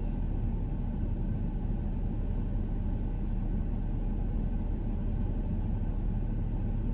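Steady low rumble of a car heard from inside, engine and road noise with no sudden sounds.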